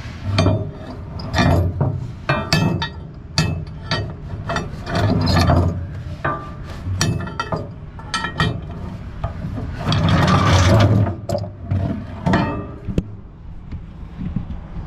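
Hands-on work with cargo-securing gear on a trailer: a string of irregular metal and wooden knocks, clanks and rattles mixed with rubbing and scraping, with a longer, louder rush of noise about ten seconds in.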